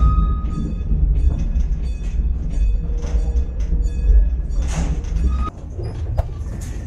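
Chiemsee-Bahn steam tramway running along its metre-gauge track: a steady low rumble with scattered clanks and knocks. The rumble drops off suddenly about five and a half seconds in.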